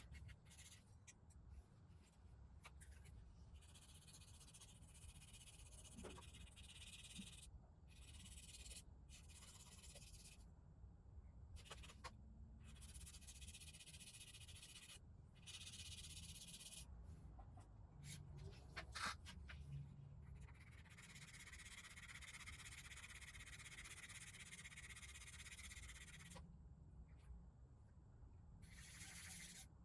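Near silence: a faint low hum, with soft hissing rubbing sounds in patches that start and stop abruptly.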